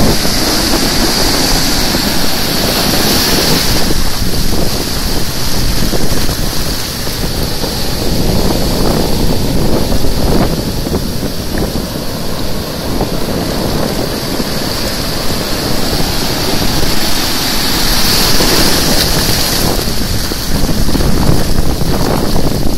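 Rough ocean surf breaking and foaming up the sand, loud and continuous, with wind buffeting the microphone.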